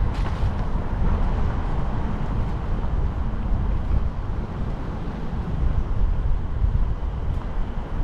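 City street ambience: a steady low rumble of traffic with wind buffeting the microphone.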